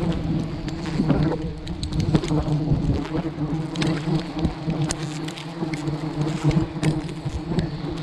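A dense swarm of honeybees buzzing around their nest, a steady drone with light scattered taps over it.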